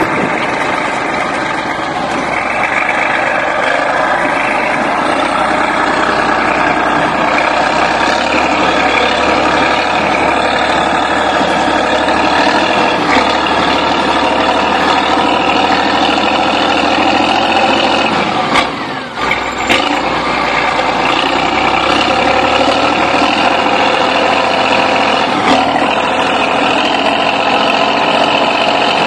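Bulldozer's diesel engine running steadily, straining to work the machine out of deep snow. The sound dips briefly a little over halfway through.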